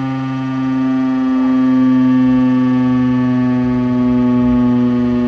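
Federal Signal STH-10 civil defense siren sounding a steady tone, its pitch holding level and its loudness swelling slightly.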